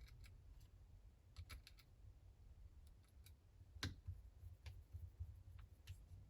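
Faint, scattered small clicks and light taps of small repair tools and parts during the reassembly of a smartphone, over a faint low hum. The sharpest click comes a little under four seconds in.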